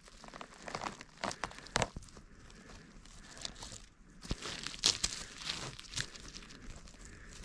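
Dry conifer needle litter and soil crackling and rustling as a porcini mushroom is twisted and pulled out of the forest floor by hand, with several sharp snaps among the crackles.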